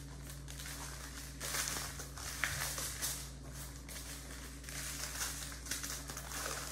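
Plastic bags of diamond-painting drills crinkling in short, irregular rustles as they are handled, over a faint steady low hum.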